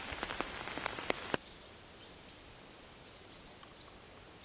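Rain dripping in scattered drops that cuts off suddenly about a second and a half in. It gives way to a faint outdoor ambience with short, high bird chirps.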